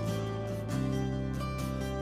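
Instrumental background music: held notes over a bass line that moves to a new note about every three-quarters of a second.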